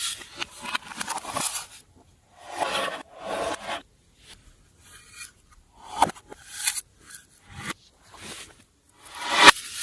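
Slime being worked by hand, scraping and crackling in irregular bursts with short pauses between them, and a sharp click twice.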